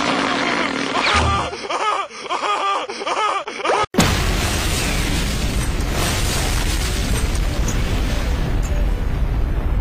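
Cartoon background music with repeated rising-and-falling notes, cut off suddenly a little under four seconds in by a loud explosion. The blast goes on as a dense, deep rumble for about six seconds and then stops abruptly.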